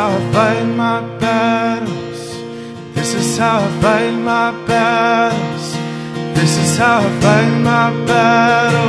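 A man singing a slow worship song, accompanying himself on acoustic guitar, the sung lines coming in phrases with short breaks between them.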